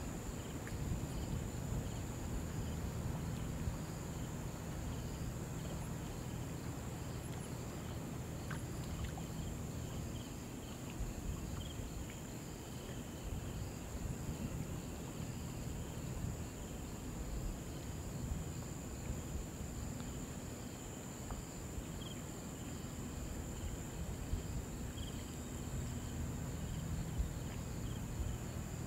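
Summer insects sounding in a steady high drone with faint regular chirping, over a continuous low rushing noise of flowing river water.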